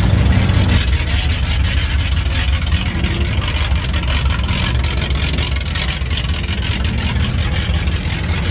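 Engine of a lifted four-wheel-drive Mustang mud truck running with a steady, loud, low rumble as it rolls slowly on big mud tyres.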